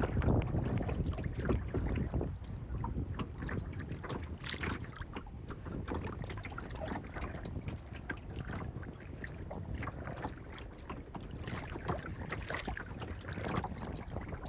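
A boat under way on a lake: a steady low rumble with wind buffeting the microphone and irregular splashing crackles of water.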